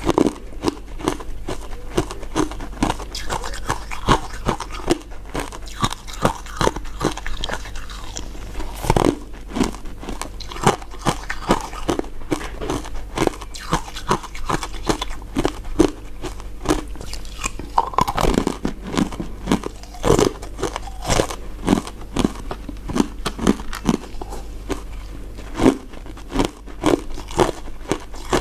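Close-miked biting and chewing of crunchy crystal ice dessert pieces: a rapid, uneven run of crisp crunches, over a faint steady low hum.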